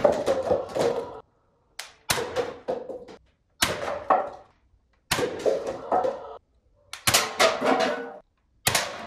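Toy foam-dart blaster firing about five times, roughly one shot every second and a half. Each shot is a sharp snap followed by a short clatter as the darts hit and paper cups fall.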